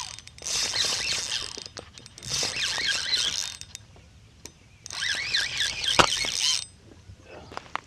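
Spinning reel being cranked in three spells of whirring gear noise with short pauses between them, retrieving line with a fish on. A sharp click about six seconds in.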